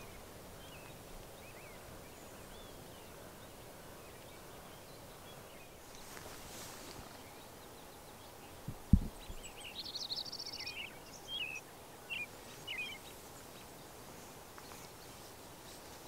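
Small birds chirping, with a quick high trill about ten seconds in followed by several short chirps. A single low thump just before the trill is the loudest sound.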